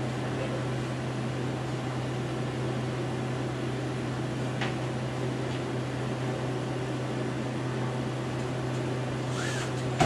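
Steady low hum with an even hiss from a fan-type motor running in the room, with a single light click about four and a half seconds in.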